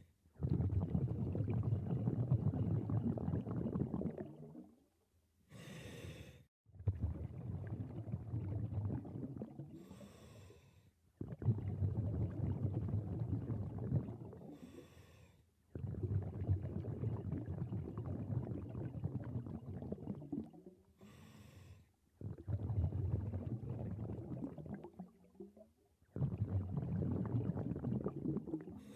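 Scuba diver breathing through a regulator underwater: a short hiss on each inhale, then a long low rumble of exhaled bubbles, repeating about every five seconds.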